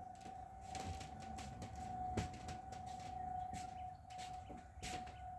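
Outdoor tornado warning siren sounding a faint, steady single tone during its routine test, with a few scattered faint clicks.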